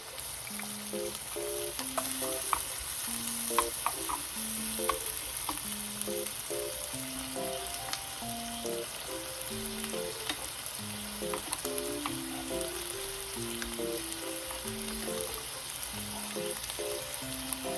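Food sizzling as it fries in a pan, with the sharp clicks of a utensil stirring it now and then. A soft, simple melody of background music plays underneath.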